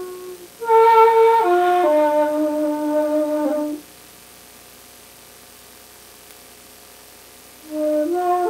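An end-blown flute playing a slow phrase of held notes that step down in pitch. It breaks off for about four seconds, then starts again near the end.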